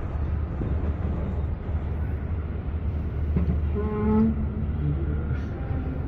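Steady low rumble of a cable-car gondola riding along its cable, heard from inside the cabin, with a brief pitched sound about four seconds in.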